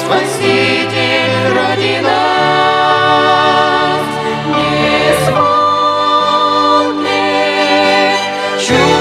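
Music: a female vocal trio singing a hymn in close harmony, with a violin, holding long chords that change every few seconds.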